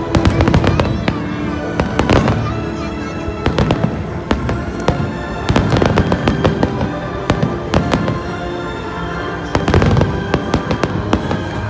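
Aerial fireworks shells bursting: sharp bangs in quick clusters with short gaps between them, over music playing steadily.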